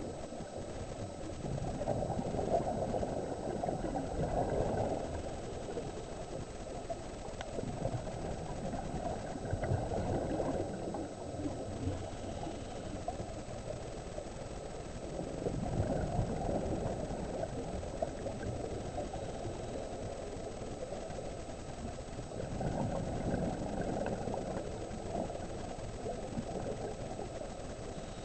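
Muffled underwater sound heard through a camera housing: a scuba diver's regulator exhaling bubbles in four swelling bursts, about every six or seven seconds, over a steady low rumble.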